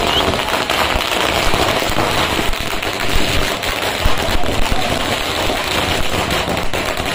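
A string of firecrackers going off in a rapid, continuous run of sharp bangs and crackles.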